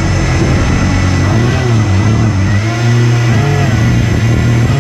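RC hovercraft's electric HP server fans running hard, a steady low hum with whining tones that rise and fall as the throttle changes.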